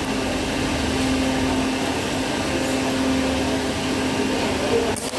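Argon welding equipment running: a steady hiss with a constant low hum, and a short click about five seconds in.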